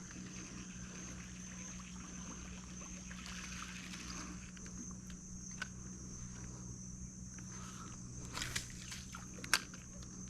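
Steady high insect drone with a low steady hum beneath it. Near the end comes a short splash and then a sharp knock, fitting a jack striking the lure at the surface before it comes loose.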